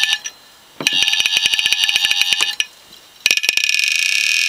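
The voice coil actuator of an opened Seagate hard drive, driven by an amplifier as a makeshift speaker, gives a harsh, high-pitched buzz with a fast rattle. It comes in three stretches of about one to two seconds, with short breaks between them.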